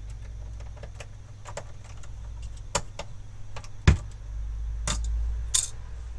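Small metal clicks and clinks from parts being handled and fitted into a PC's metal chassis. They come irregularly over a low rumble, with one sharp knock, the loudest, about four seconds in.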